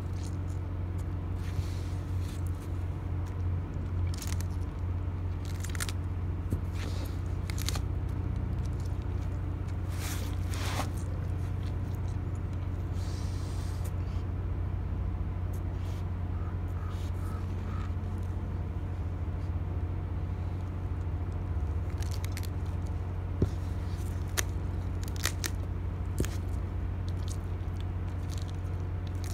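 A Sudanese sulcata tortoise biting and tearing at a thick, fibrous cactus pad with its beak, giving irregular crunching bites over a steady low hum.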